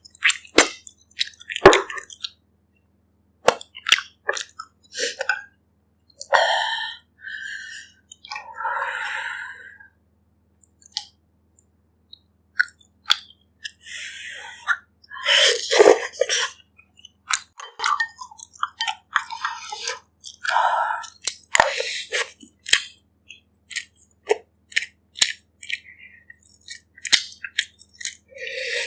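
Close-up eating sounds: wet chewing and lip smacks on pork ribs and soup, with irregular clicks and slurps.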